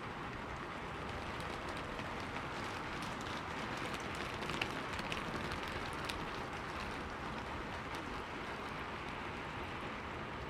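Steady rain falling on a city street, with a scatter of sharper drop ticks from about two to seven seconds in, one louder tick about four and a half seconds in.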